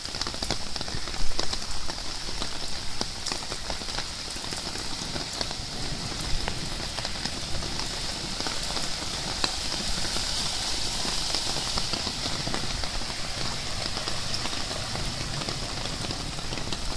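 Heavy rain pouring onto a flooded street and its standing water: a steady, even hiss with scattered drop clicks.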